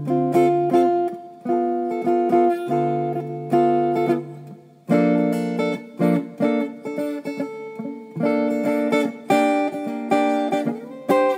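Acoustic guitar music: chords plucked or strummed and left to ring and fade, a new one roughly every second.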